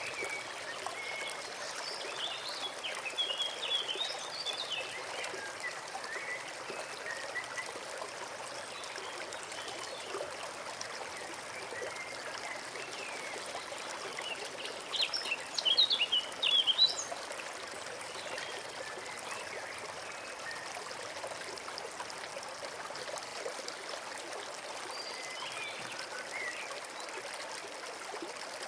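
A small forest brook trickling steadily, with birds chirping now and then over the water; the loudest flurry of chirps comes a little past halfway.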